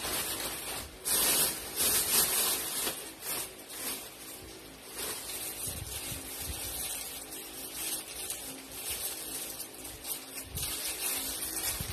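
Plastic packaging rustling and crinkling in irregular flurries as packaged goods are handled and sorted by hand, over a steady hiss.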